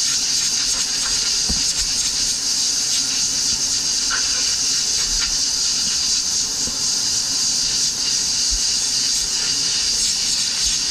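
Compressed-air blow gun giving a steady high hiss as it blows sanding dust off a foam surfboard blank.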